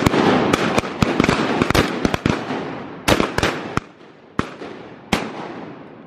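A volley of shotgun blasts from a group of duck hunters firing on a flock: many shots in quick, overlapping succession through the first four seconds, then two more spaced shots, each echoing off the timber.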